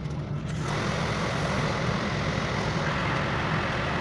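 Steady hum and rushing road noise heard from inside a city bus, growing louder about half a second in as the bus pulls away.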